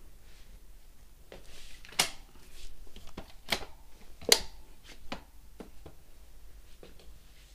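Sharp clicks and knocks from handling a folding bike's saddle and seat post. The loudest come about two, three and a half and four and a half seconds in, with smaller clicks between and after.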